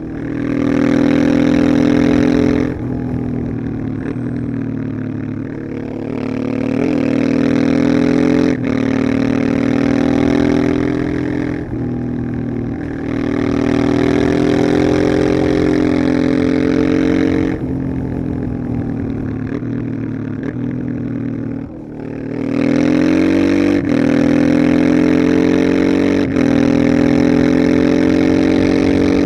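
Honda Transalp XL600V's V-twin engine pulling hard, its pitch climbing steadily and then dropping briefly several times, as at gear changes while under way. Near the end it eases off briefly, then pulls strongly again.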